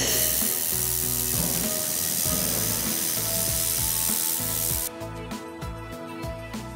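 Handheld fiber laser welder with its wobble head in triangle mode running a bead along an inside corner of sheet metal: a steady loud hiss that cuts off sharply about five seconds in when the weld stops.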